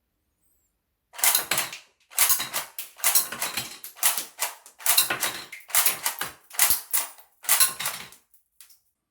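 Plastic mechanism of a 3D-printed semi-auto airsoft gun clicking and clattering in about eight short bursts of sharp clicks, beginning about a second in.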